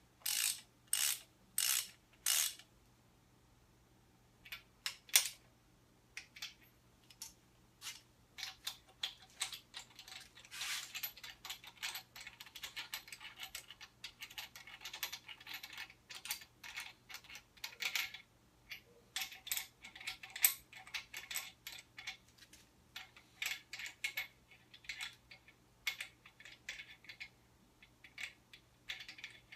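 Hand socket ratchet clicking on the main bearing cap bolts of a Ford 302 V8 block as they are run down snug. First comes a handful of evenly spaced strokes, then a few sharp metal clicks, then a long, uneven run of quick ratchet clicks and small metal clinks.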